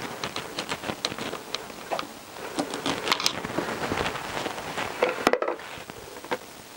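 Irregular small clicks and knocks of hands and a screwdriver working on a Honda CBR1000F's carburettor bank as it is seated in its rubber intake boots and the clamps are tightened, with a few sharper knocks about three and five seconds in.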